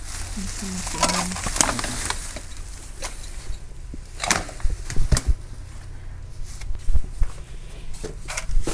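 Plastic bag rustling and crinkling as gloved hands handle things in it, with a few sharp knocks and bumps from handling.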